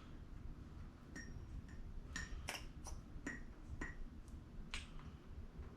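Faint, irregular small clicks and ticks, about eight over a few seconds, as thick assembly lube is squeezed from a bottle onto camshaft lobes.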